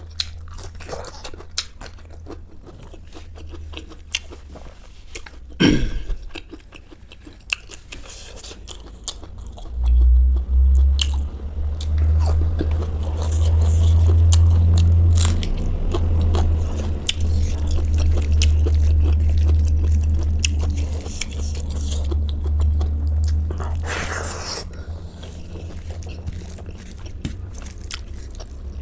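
Close-miked eating: biting and crunchy chewing of food, with sharp crackles throughout. A deep low rumble rises about a third of the way in and runs through the middle before fading.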